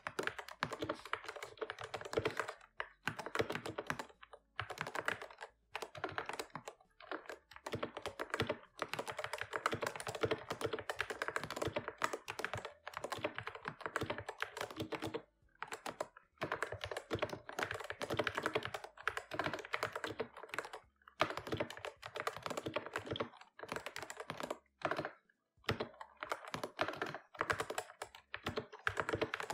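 Mechanical keyboard being typed on quickly: dense runs of key clacks broken by short pauses every few seconds.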